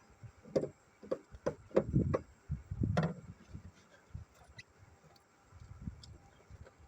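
Irregular clicks and knocks of hand work on the car's engine parts. They come thick in the first three seconds, then thin out to a few faint ticks.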